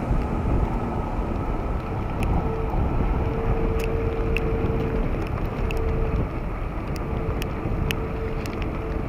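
Wind rushing over the microphone of an open vehicle moving at highway speed, with a faint steady hum that comes and goes. Scattered sharp ticks about once a second are raindrops hitting the camera.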